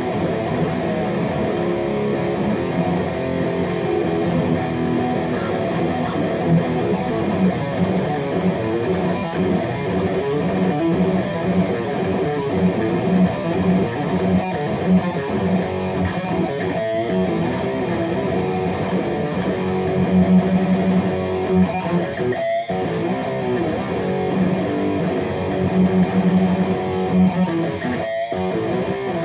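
Electric guitar riffing through a Gremlin Machine Shop Firepower, a JCM 800-style preamp pedal with overdrive, giving a dense driven metal tone. The playing stops for a moment twice near the end.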